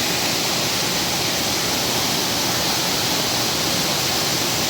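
Steady, even rush of water pouring over a waterfall.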